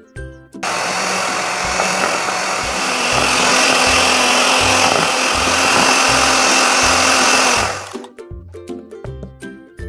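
Electric hand mixer running, its beaters whipping butter and powdered sugar in a bowl; it switches on about half a second in and cuts off about two seconds before the end. Background music with a steady beat plays underneath.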